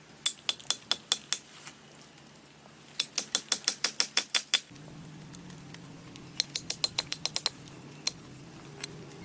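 Three quick runs of sharp clicks, about six a second, with a couple of single clicks near the end. A faint low hum comes in about halfway through.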